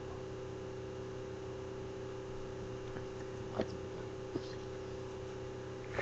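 A faint steady hum with a light hiss, broken by a few soft clicks in the middle.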